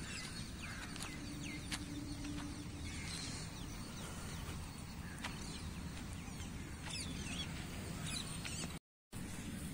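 Faint open-air ambience: scattered short, high bird chirps over a low steady rumble. The sound drops out completely for a moment near the end.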